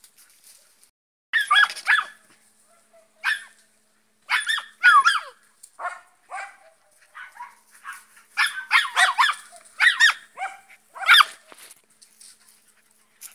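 Samoyed puppy yapping: short, high-pitched yips and yelps in irregular clusters, a dozen or so over the stretch.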